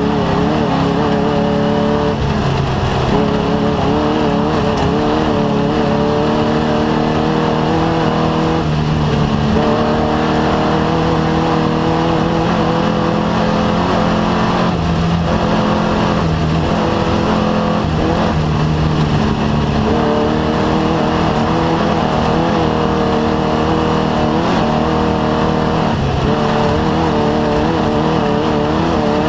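Off-road race vehicle's engine running hard and without a break, its pitch rising and dipping a little with the throttle.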